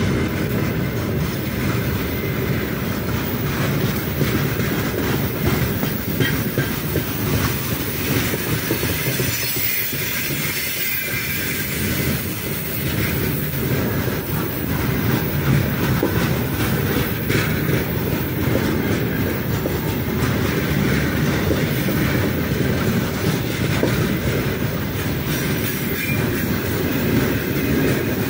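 Heavy freight train's open gondola wagons rolling past close by: a steady rumble of steel wheels on the rails, with clickety-clack as the wheels cross rail joints.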